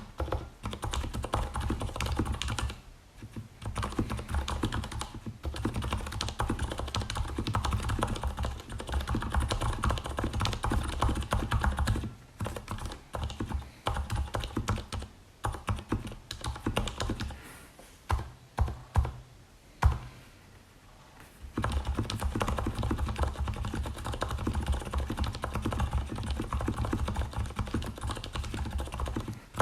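Typing on a Leopold FC750RPD tenkeyless mechanical keyboard with lubed Cherry MX Silent Red switches: soft, bassy keystrokes in fast runs. Brief pauses break the runs, and there is a stretch of slower, scattered presses about midway.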